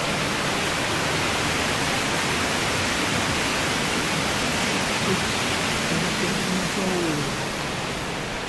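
Steady rush of water from the gorge's stream and falls.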